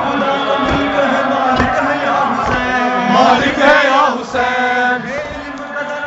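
Men's voices chanting a noha, a Shia lament for Imam Hussain, in a rising and falling melody. A single voice wavers loudly over the others about halfway through, and faint low thumps fall roughly once a second underneath.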